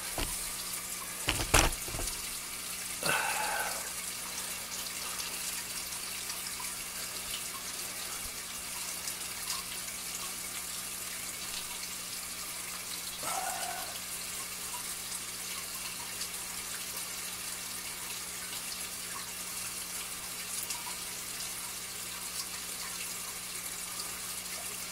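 Steady trickle of running water from an aquarium setup, with a couple of sharp knocks about a second and a half in.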